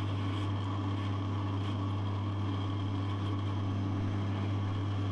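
Pillar drill running with a steady motor hum as its bit is fed slowly through a broken aluminium cylinder-head lug, lubricated with cutting fluid.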